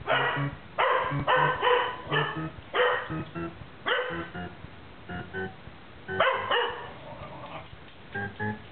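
A dog barking excitedly in quick clusters of sharp barks, about a dozen in all, with a short lull around five to six seconds in. The barking is its reaction to a sound played from a video, which runs faintly under the barks as music.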